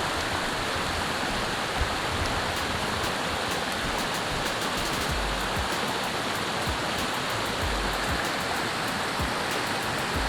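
Creek waterfall: water pouring and splashing in a steady rush, with a few brief low thumps on the microphone.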